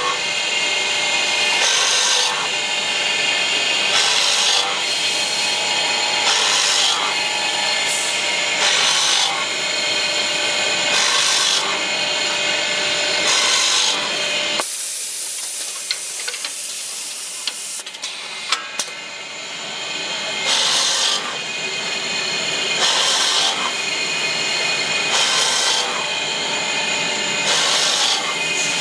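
Automatic brake lining drilling machine drilling holes in curved brake linings: a steady motor whine with a harsh grinding burst each time the bit cuts into the lining, about one every two seconds. About halfway through, the drilling noise drops away for several seconds with a few clicks, then the drilling resumes.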